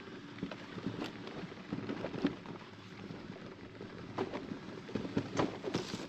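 Bicycle riding down a steep, narrow dirt trail: the tyres crunch over the rough ground and the bike rattles, with irregular clicks and knocks from the bumps.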